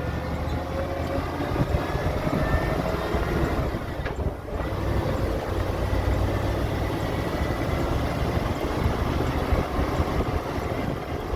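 A pickup truck driving, its engine running with steady low rumble and road noise. The engine note rises in the first few seconds and briefly drops about four seconds in.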